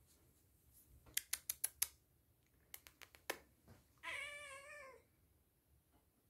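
Two quick runs of sharp clicks, about a second in and again near three seconds, then a house cat meows once, about a second long with a wavering pitch.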